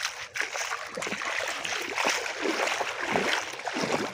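Shallow seawater splashing and dripping as a man wades and hauls a gill net up out of the water by hand, an irregular splashing that picks up about a second in.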